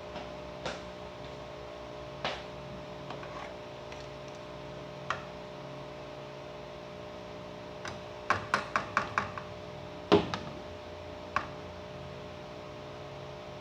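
Spoon knocking against a bowl while scraped mango is spooned into it: scattered knocks, a quick run of about six taps around eight seconds in, then a louder knock a second later, over a steady hum.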